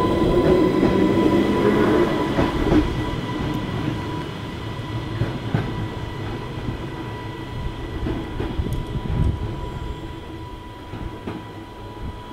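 Island Line Class 484 electric train pulling away from the platform and running off down the line, loud at first and fading steadily as it recedes.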